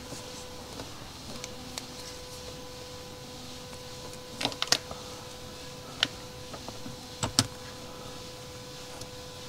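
Small clicks and taps of a motorcycle ignition switch housing, shoulder bolts and rubber spacer being handled and fitted onto a gauge bracket. There are a few sharp clicks through the middle, the loudest in a cluster about halfway through, over a steady faint high hum.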